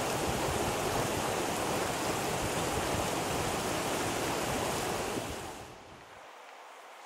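Steady rush of water over the rocks of a shallow river below steaming geyser vents. Near the end it falls away quickly to a much quieter outdoor hush.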